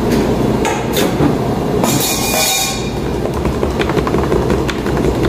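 A steady low rumble with a short hiss about two seconds in and a few light clicks, as sparkling water from a can is poured over a pitcher of peach ade base.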